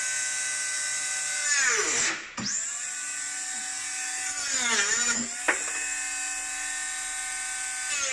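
Bosch GWS 12V cordless mini angle grinder running with a steady high whine, its pitch sagging twice as the disc bites into the wood, about two seconds in and again about five seconds in, then recovering. A brief sharp crack sounds about five and a half seconds in.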